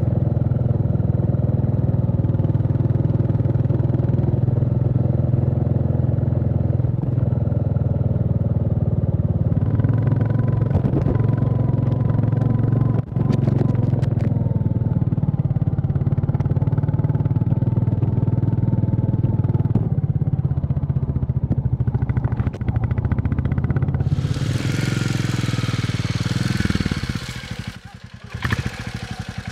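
Royal Enfield Classic 350's single-cylinder engine running steadily as the motorcycle rides a dirt trail. Near the end the engine sound drops away and settles into a low, even thumping.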